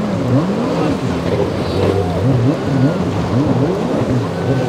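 Motorboat engines running through rough water, their pitch rising and falling repeatedly as the throttles change, over a steady wash of water noise.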